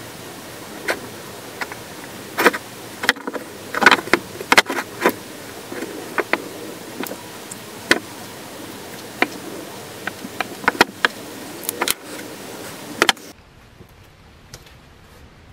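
Irregular light clicks and taps over a steady hum, which cuts off about thirteen seconds in.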